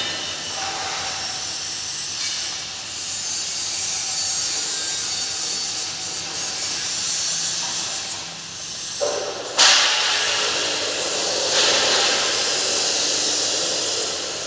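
Steady hissing rush of air, louder from about three seconds in, with a sudden surge about nine seconds in, then easing off near the end.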